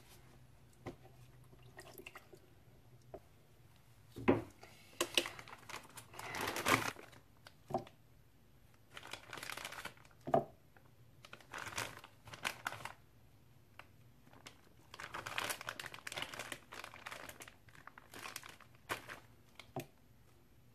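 Plastic bag crinkling in irregular bursts as chunks of solid butter are pulled out of it by hand. A few sharp knocks stand out, about 4 and 10 seconds in.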